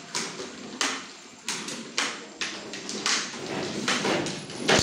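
Plastic wheels of a child's ride-on toy and a baby walker rattling and scraping over a hard stone floor, in short irregular bursts with knocks between.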